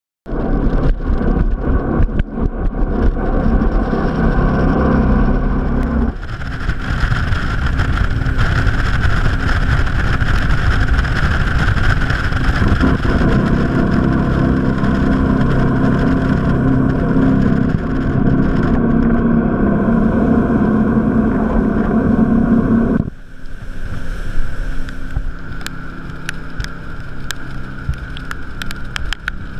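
Jetboat under way on a river: a steady engine drone over rushing water. The sound changes abruptly about six seconds in, and again about twenty-three seconds in, where it turns quieter.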